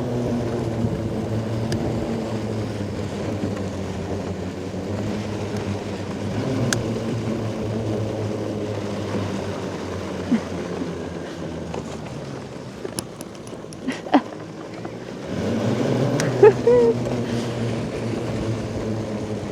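Electric quad-motor ATV being ridden through snow, its motors giving a steady hum. The sound eases off for a few seconds about two-thirds of the way through, with a few sharp clicks, then picks up again.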